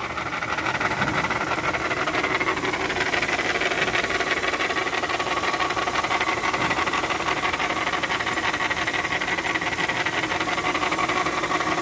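Hyundai 4WD transfer case running under drive with a steady grinding whine. The transfer case had lost its oil through a failed oil seal, and its gears are grazing instead of meshing.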